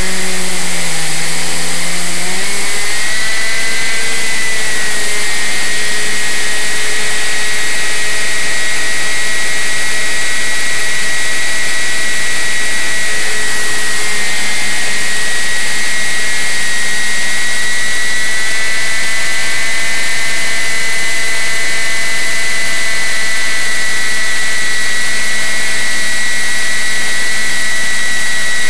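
Onboard sound of a radio-controlled model flying wing in flight: its motor and propeller running loud and steady with a high whine, over wind rushing across the microphone. The pitch dips during the first couple of seconds, then rises back and holds.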